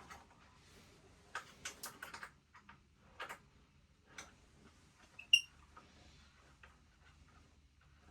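Scattered small clicks and taps of metal tools and parts being handled, with one sharp ringing metallic clink about five seconds in.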